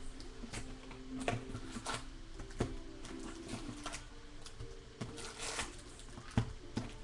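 Hands unpacking a cardboard hobby box of trading card packs: scattered taps, clicks and wrapper crinkles as the packs are lifted out.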